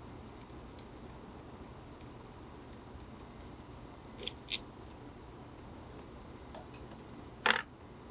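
A few scattered light clicks and knocks of parts and tools being handled in a car's engine bay, over a faint low hum. There are two close clicks about four seconds in, and the loudest comes near the end.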